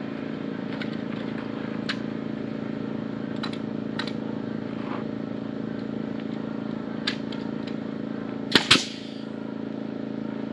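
Pneumatic framing nailer firing: a few faint sharp clicks, then two loud snaps in quick succession about eight and a half seconds in, over a steady low hum.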